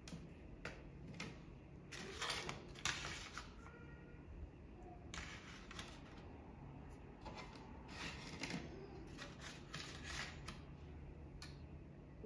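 Plastic bubble-gum pouch crinkling as it is handled, in about a dozen short rustling bursts. The loudest come two to three seconds in.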